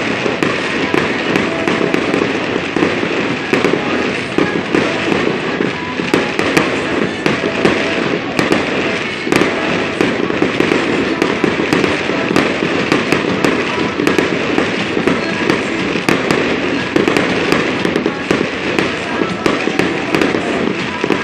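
Fireworks display firing continuously: a dense, unbroken crackling of gold crackle-star bursts, packed with many sharp pops.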